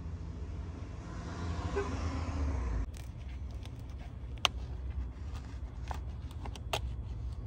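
Motor oil pouring from a plastic jug through a plastic funnel into the engine's oil filler, the gurgling pour swelling and then stopping abruptly about three seconds in. After that come a few sharp plastic clicks as a new oil bottle is handled and its cap is twisted open.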